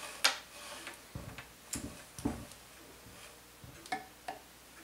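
Small metal parts and tools being handled on a bench: irregular clicks and a few low knocks, with two sharper clicks near the end that ring briefly.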